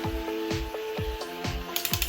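Background music with a steady beat, a low drum hit about twice a second under held notes. Near the end a harsher noise with fast, even clicking comes in.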